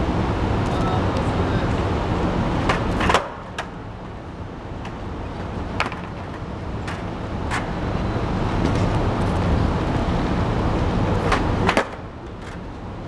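Steady low rumble of street and traffic noise, with a few sharp clacks scattered through it. The loudest clacks come about three seconds in and near the end.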